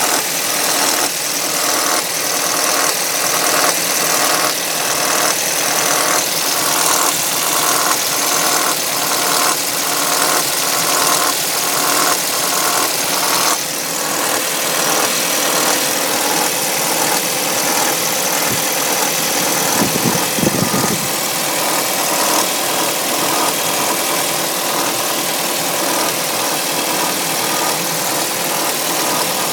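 Audi A3 2.0 FSI four-cylinder engine idling cold, with a loud noise and a regular pulsing over the running. It is a cold-start noise that the owner takes for the tensioner.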